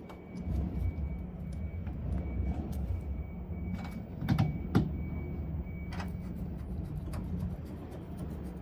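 A machine hums steadily and low, with a few sharp knocks and clicks a little past the middle.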